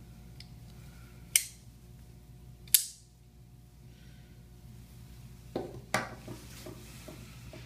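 Titanium-handled Burch Flipper Nova folding knife clicking as its blade is flipped: two sharp metallic snaps about a second and a half apart. Near the end comes a cluster of lighter clicks and scraping as the knife is handled against a hard surface.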